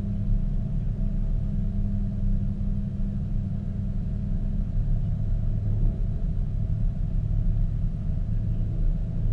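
A sports car's engine and exhaust droning at a steady cruising speed on the oval, heard from the car's rear deck, with wind rumbling on the microphone.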